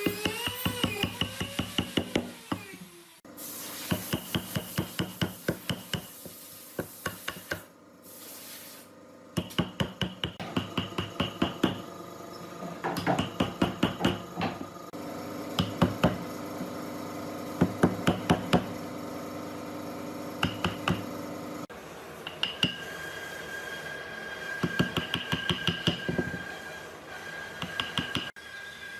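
Runs of quick, light hammer taps with a metallic ring, about six to eight strikes a second, in several short bursts that stop and start abruptly.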